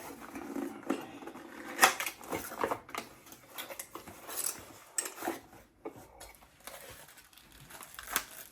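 Irregular clinks and knocks of the espresso machine's stainless steel milk jug being handled and set down, the sharpest about two seconds in and another near the end.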